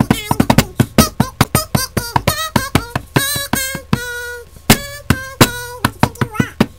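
A person making silly mouth noises, beatbox-style: a quick run of sharp clicks and pops mixed with short, wavering, pitched vocal notes.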